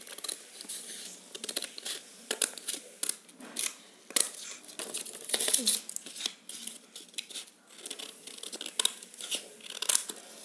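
Scissors snipping through folded paper in a series of short, irregular cuts, with paper rustling between them.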